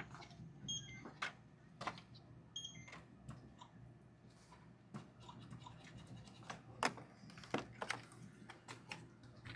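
Faint scattered clicks and taps of handling at a shop counter, with two short electronic beeps, one under a second in and one about two and a half seconds in, over a steady low hum.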